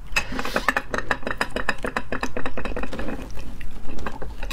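Close-miked wet chewing of rubbery sea snail meat: a rapid, irregular run of small moist clicks and squelches.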